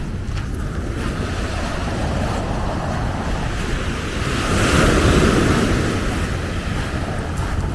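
Ocean waves washing onto the beach, with wind rumbling on the microphone; a louder wave surges in about halfway through and falls away.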